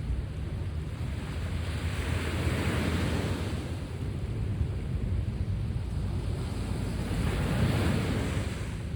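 Sea waves washing onto the shore, two surges about five seconds apart, each swelling and then fading, over a steady low rumble.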